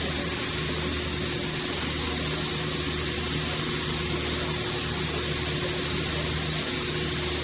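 Hydraulic power unit of a ship's pilot door running: a steady motor and pump hum with a constant hiss.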